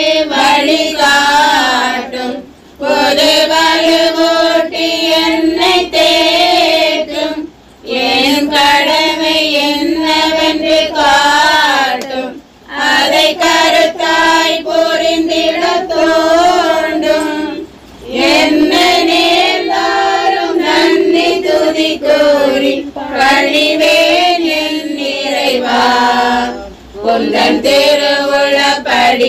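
A group of voices, mostly women and children, singing a Tamil Christian devotional hymn together, in long held phrases with short breath pauses about every five seconds.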